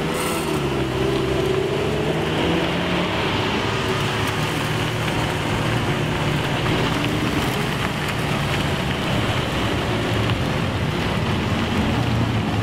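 Loud Lamborghini V10 and V12 engines of a convoy of supercars driving past, several engine notes overlapping; their pitch rises and falls over the first few seconds, then settles into a steady drone.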